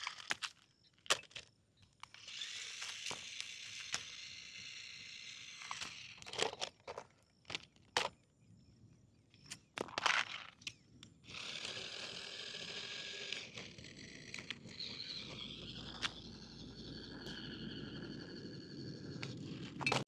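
Small electric motors and plastic gearboxes of toy remote-control vehicles whirring in runs of a few seconds, with scattered sharp plastic clicks and knocks.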